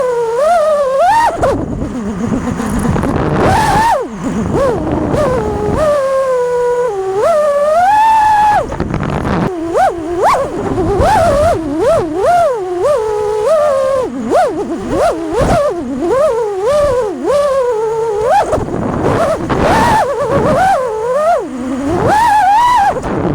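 FPV quadcopter's brushless motors whining, the pitch swooping up and down quickly and constantly with throttle changes, with spells of wind rush between.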